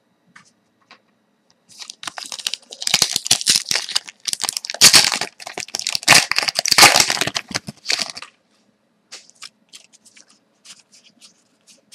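A foil trading-card pack being torn open and crinkled by hand: a long run of crackling rips over several seconds, followed by light scattered clicks as the cards are taken out and handled.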